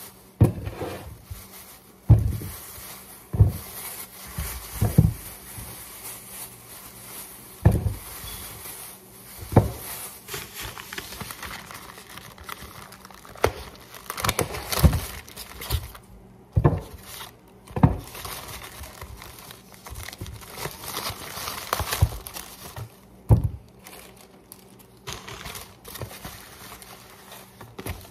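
Plastic produce bags and plastic-wrapped foam trays crinkling as they are handled, with irregular knocks as groceries are set down on the countertop.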